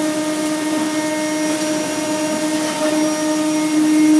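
Omnitech nested-base CNC router running as it machines a cabinet panel: a steady, pitched machine whine over a noisy hum, growing a little louder near the end.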